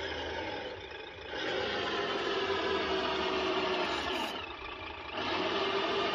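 Radio-controlled construction vehicle model running, a steady mechanical whir that drops away briefly twice and picks up again.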